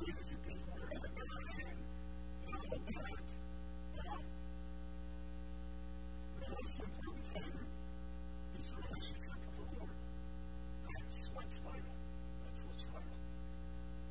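Steady electrical mains hum with evenly spaced overtones, over faint, intermittent speech.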